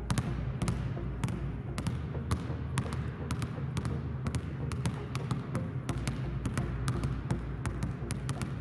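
Two basketballs dribbled on a hardwood gym floor, each bounce a sharp slap, about three or four bounces a second in an uneven rhythm as the two balls fall out of step.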